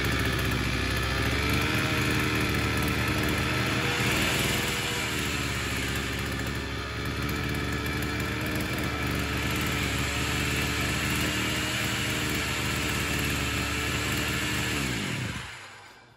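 Sican 52cc two-stroke outboard engine running steadily on a test run after its drive shaft was shortened, then shut off near the end, its note falling as it winds down.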